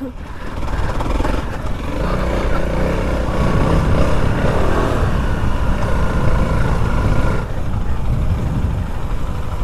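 Honda CRF300L's single-cylinder four-stroke engine running under a rider on a dirt trail, its note rising and falling with the throttle, then easing off about three-quarters of the way through.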